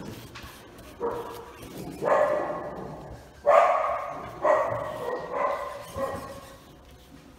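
A dog barking about six times, roughly a second apart, the loudest bark about halfway through.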